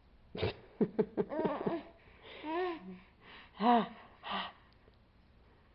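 Baby laughing: a quick run of short, breathy, gasping giggles, then three high-pitched squeals.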